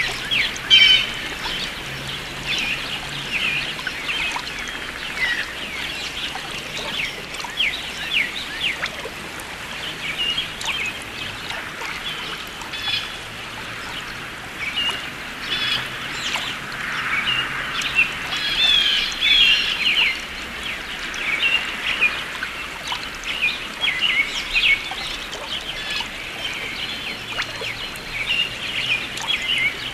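Songbirds singing and calling, many short chirps and trills overlapping continuously, over a steady faint hiss.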